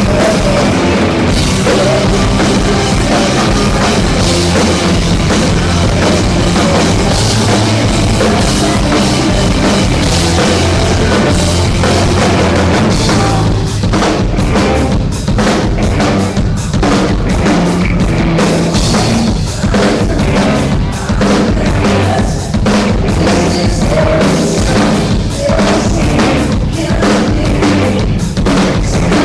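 Live rock band playing loudly, with the drum kit prominent: kick and snare under full-band music. About halfway through, the playing turns to choppy, spaced hits with brief gaps.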